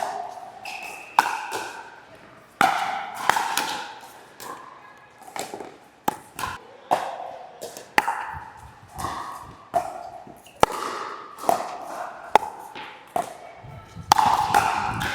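A long pickleball rally: sharp pops of paddles striking the plastic ball, mixed with ball bounces on the court, coming every half second to a second, each with a short ringing tail.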